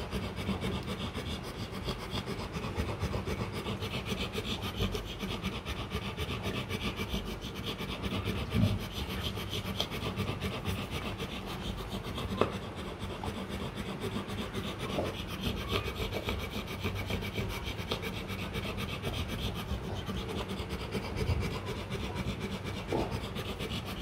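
Steady soft rubbing and rasping of a Rottweiler mother licking and nuzzling her newborn puppies as they nurse, with a few faint clicks.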